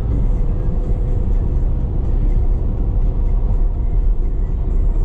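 Car driving, with a steady low road and engine rumble heard inside the cabin.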